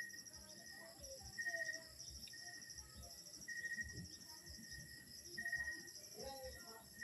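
Insects chirping steadily in a fast, even pulse, with a thin high tone that comes and goes; the rest is quiet.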